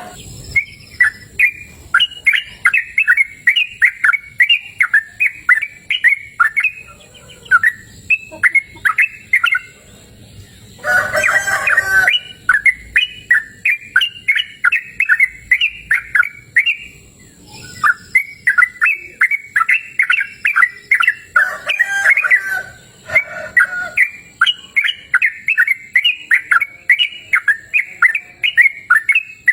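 Yellow-vented bulbul singing: phrases of rapid chirping notes, repeated again and again with short pauses between them. About 11 seconds in, and again near 22 seconds, a louder, harsher call cuts in briefly.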